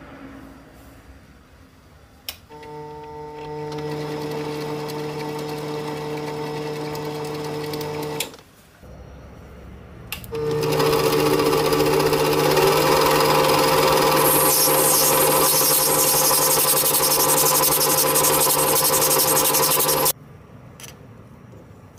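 Sieg C2 mini lathe's motor running with a steady hum, pausing briefly after about 8 s, then running again louder while the tool cuts a brass workpiece, with a high cutting hiss added from about 14 s; the sound cuts off suddenly near the end.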